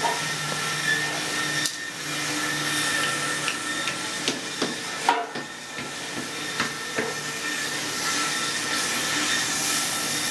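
Steady mechanical hiss and hum with a faint high whine, broken now and then by a few short metallic knocks.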